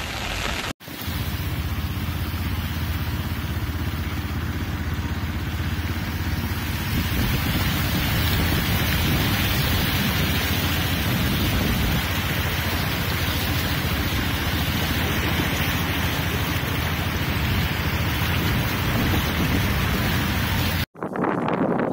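Steady cyclone wind and rain, with heavy low wind rumble on the microphone. It drops out briefly about a second in and again near the end.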